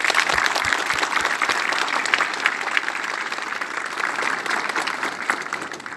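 A group of people clapping and applauding, dense and steady, easing off slightly toward the end.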